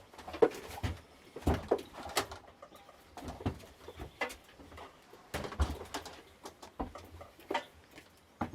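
Irregular clinks, taps and knocks of hand tools and metal parts being handled while a dirt bike is dismantled.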